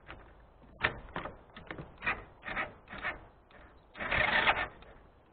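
An engine's electric starter being tried on a weak battery: short stuttering bursts about twice a second, then a longer half-second crank about four seconds in, and the engine does not catch. The battery is thought to be run down.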